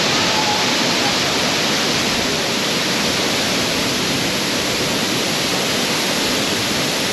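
Waterfall rushing: a steady, loud roar of falling water with no breaks.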